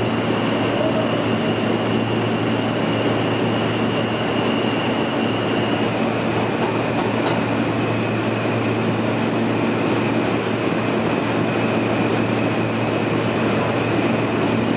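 R160A subway car running through a tunnel, heard from inside the car: a steady rumble of wheels on rail with a high thin whine that dips slightly in pitch about six seconds in.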